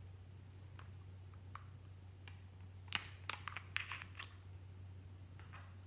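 Hard plastic clicks and clacks from spherical emoji lip balm containers being handled and one being opened: a few single clicks, then a quick cluster of louder clicks about three to four seconds in.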